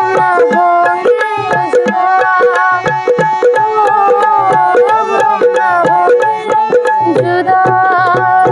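Dholki hand drum playing a quick, busy rhythm under a sliding melodic instrument that carries a Hindi film-song tune in an instrumental passage.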